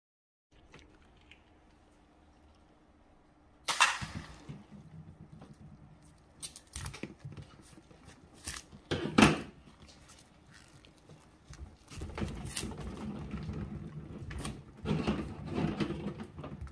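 Scissors cutting into the stretched latex of a large balloon packed with Orbeez water beads: a few sharp snaps, the loudest about nine seconds in. From about twelve seconds, a continuous squishy rustling as the gel beads squeeze out through the cut in the rubber.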